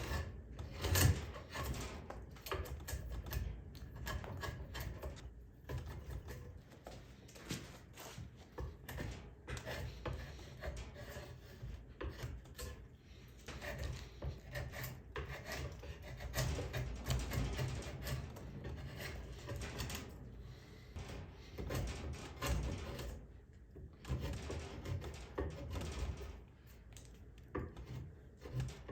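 Hand tool shaving and scraping a wooden axe handle blank, in quick irregular strokes with clicks and knocks, as the handle is carved down to shape.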